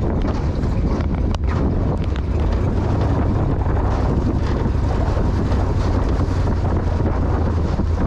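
Wind buffeting the microphone as a small aluminum jon boat runs under way across choppy river water, over a steady low drone from the boat. There is a single light knock about a second and a half in.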